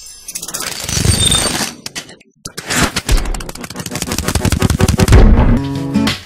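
Logo-intro sound effect: a dense run of rapid crackling clicks and hits, like rapid fire, with a brief drop-out about two seconds in. Near the end it gives way to strummed acoustic guitar music.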